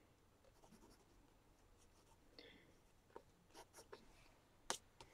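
Faint pencil strokes on sketchbook paper: a few short scratches in the second half and one sharper tick a little before the end.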